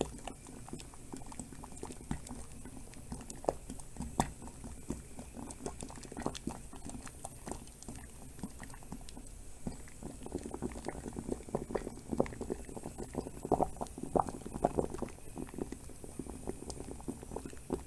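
Water boiling around a bag in a pot, with a steady rumble and a dense run of irregular bubbling pops that grows busier and louder about ten seconds in.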